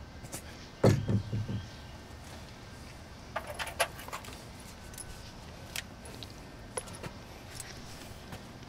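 Handling noise as a chrome shower trim plate is fitted over the valve: a heavy thump about a second in with a few knocks after it, then a quick cluster of light metallic clinks and a few scattered ticks.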